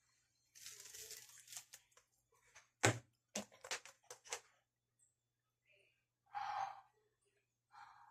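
Frozen paper squishy being squeezed and crushed by hand, crackling and crinkling irregularly, with one sharp loud crack a little under three seconds in.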